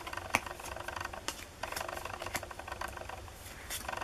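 Japanese Pokémon trading cards handled and flipped through in the hand: light clicks, taps and rustles of cards sliding over one another, with one sharper click about a third of a second in.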